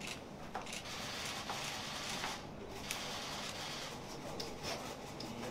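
Steady room noise with faint rustling and a few light clicks.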